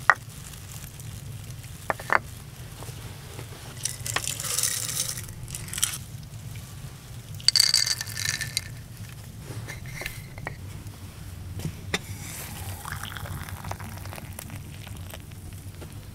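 Wooden bowls knocking sharply as they are set down on a stone slab, then dry grains rattling as they are poured into a wooden bowl, in two pours about four and seven and a half seconds in. A steady low rumble runs underneath.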